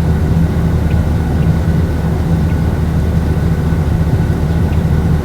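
Steady low vehicle rumble, engine and road or wind noise, with a faint steady high whine above it.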